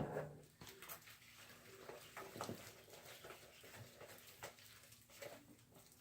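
Faint sticky squelches and small clicks of wet, goopy slime being kneaded and pulled by hand, with one louder slap right at the start.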